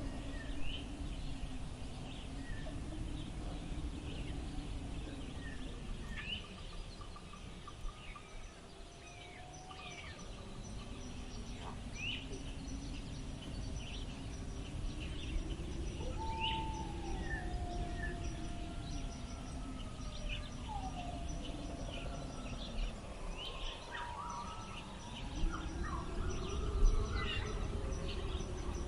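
Wind blowing in slow gusts that swell and die away, with birds chirping throughout and calling in a few falling whistles.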